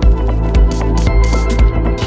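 Background music with a steady beat over held bass and chord tones.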